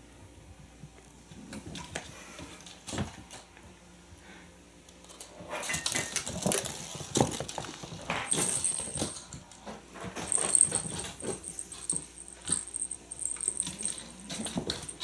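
A kitten growling low and rough during play, among scrabbling and light knocks of kittens tussling on a wooden floor and a cardboard scratcher. A small toy bell jingles on and off. It all starts about halfway through.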